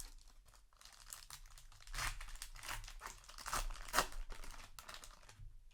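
Crinkling and tearing of a trading-card booster pack wrapper being handled, with the loudest crackle about four seconds in.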